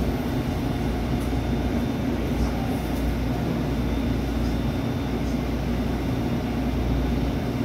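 Steady low hum inside a SEPTA Route 101 trolley, a Kawasaki-built light rail car, as it eases to a stop and stands at a station platform.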